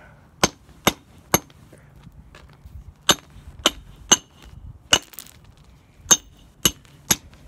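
Hatchet blade chopping into a geode lying on concrete, cracking the rock open: about ten sharp strikes, each with a short metallic ring, mostly in quick runs of three about half a second apart.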